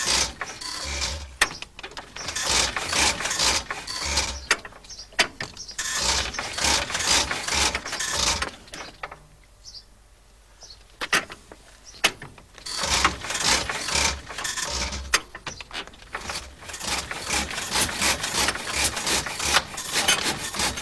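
A veteran car's engine being hand-cranked on half compression with its starting handle: the crank and engine clatter and thud as it turns over in bouts, with a pause about halfway. Near the end the strokes come faster and closer together as the engine catches and starts running.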